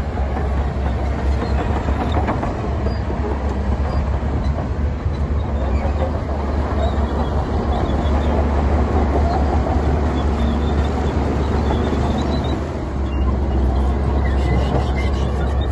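Heavy diesel earthmoving machinery running steadily, a deep engine rumble with a continuous mechanical clatter and grinding over it.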